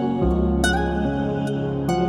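Slow, gentle instrumental background music: held low tones with a few struck notes.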